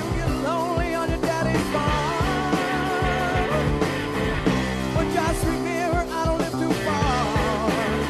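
Hard rock band playing live. An electric guitar plays gliding, wavering slide-style lead lines over bass and drums.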